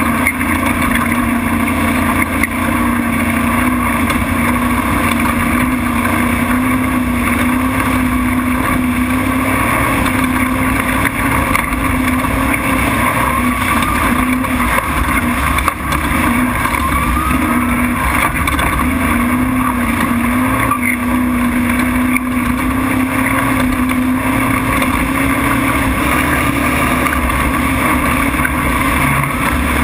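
Off-road race truck's engine running hard at high, fairly steady revs as it drives flat out on a dirt track, with a constant rushing noise underneath.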